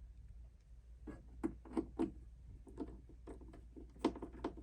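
Faint, irregular clicks and taps of small screws and a screwdriver against the metal bottom plate of an MPC Key 61 as the plate's screws are put back in, starting about a second in.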